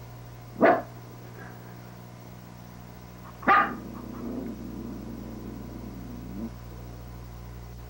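Maltipoo puppy giving two short, sharp barks about three seconds apart, the second running into a low growl of a couple of seconds: a defensive reaction to a box turtle.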